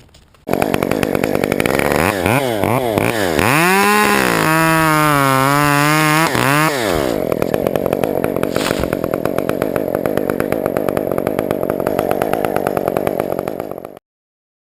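Gas chainsaw revved several times in quick sweeps, then held at a high pitch for about two seconds before dropping back, then running steadily until it cuts off abruptly near the end.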